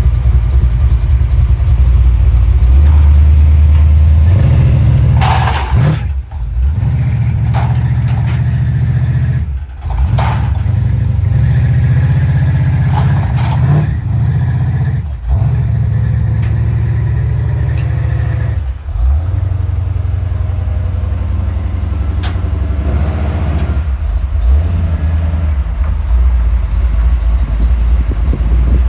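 Car engine running with a loud, low exhaust rumble that steps up and down in level, briefly cutting out several times.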